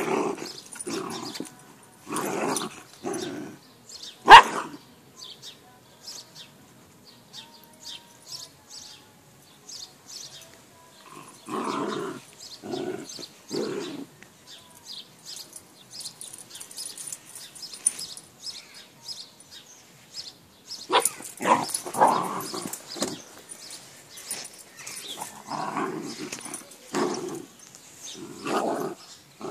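Two dogs play-fighting, growling and barking in bursts of a few seconds with quieter stretches between, and one loud sharp bark about four seconds in. It sounds fierce but is play.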